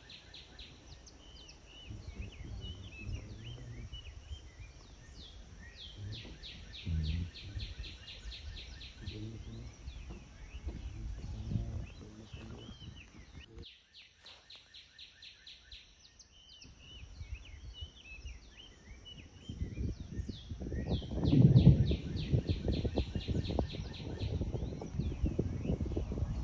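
Wild birds chirping and calling in rapid repeated notes, over a low, irregular rumble that swells loudest about three quarters of the way through.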